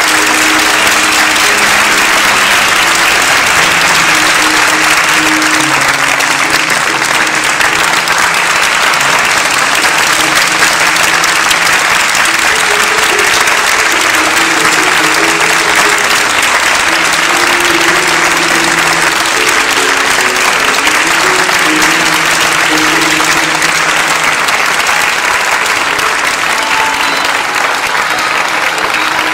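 Theatre audience applauding steadily, with music and a simple melody playing underneath.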